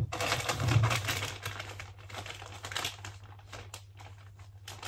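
Crinkly rustling and scattered light clicks of small items being handled close by, loudest in the first second and a half, then thinning out to a few ticks.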